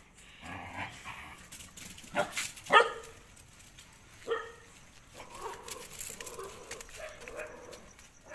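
Street dogs barking and yelping in a fight, with a burst of sharp barks about two to three seconds in as the loudest part, followed by shorter calls and whining.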